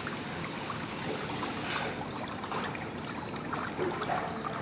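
Steady rushing, water-like noise from the water jets of a pedicure footbath running, with a few faint clicks.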